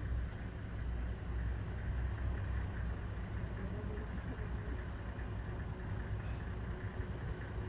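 Safari vehicle engine idling with a steady low rumble.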